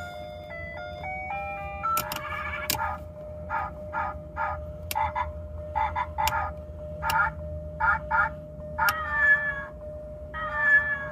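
An aftermarket car siren and animal-sound box playing through its horn speaker. A short electronic jingle in stepped tones ends in the first two seconds, then come rows of short frog-croak calls with sharp clicks between them, and from about nine seconds in, long drawn-out cat meows. A faint steady tone sounds throughout.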